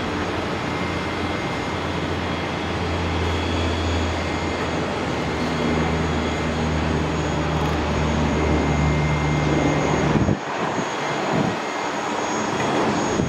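Bombardier Dash 8 Q300 twin turboprop at takeoff power as it lifts off and climbs away: a steady low propeller and engine drone under a broad rushing noise. About ten seconds in, the deepest part of the drone drops away abruptly, leaving a rougher, noisier sound.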